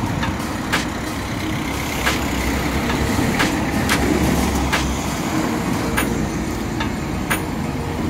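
An engine running steadily with a low rumble, with sharp clicks every second or so.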